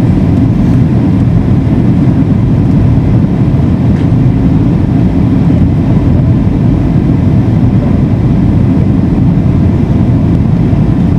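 Cabin noise inside a Boeing 757 airliner descending on approach to land: a steady, loud, low rumble of the jet and its airflow, unchanging throughout.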